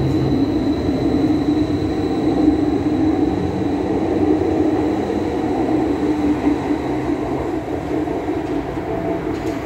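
Athens Metro Line 1 electric train pulling out of the station past the platform: a steady rolling rumble that slowly fades as it moves off. A thin high whine is heard early and dies away about halfway through.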